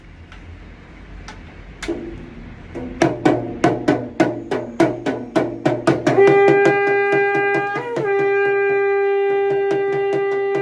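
Damru drum beats, scattered at first and then quickening into a fast, even rhythm of about four strokes a second. About six seconds in, a shankh (conch shell) is blown over the drumming: one loud, long, steady horn-like note that wavers briefly in pitch about two seconds later and then holds on.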